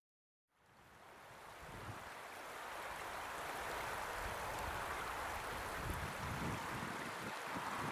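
Wind blowing over the microphone: a steady rushing hiss with irregular low buffeting gusts, fading in from silence about half a second in.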